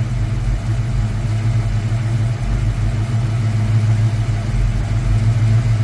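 Fox-body Ford Mustang engine idling steadily, with the hood up. The owner suspects a ticking lifter in it.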